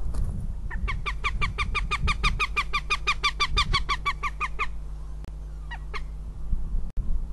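Northern goshawk giving a rapid run of about thirty sharp, slightly down-slurred 'kek' calls over about four seconds, then two more single calls. This is the chattering call of goshawks heard at mating.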